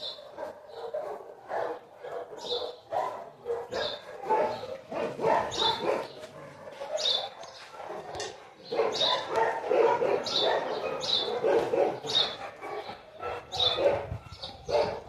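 Several dogs barking over and over, the barking busiest in the second half.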